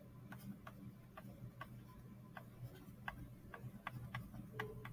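Faint, unevenly spaced clicks of a stylus tapping on a tablet screen as handwriting is written, over a low steady hum.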